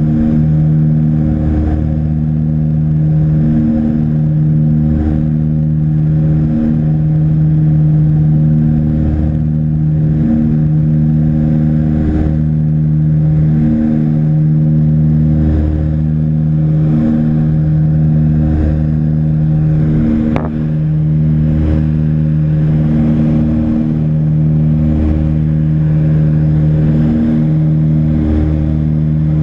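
Britten-Norman BN-2 Islander's engine and propeller droning steadily, heard inside the cabin, with a slow uneven pulsing in the drone. A short click about twenty seconds in.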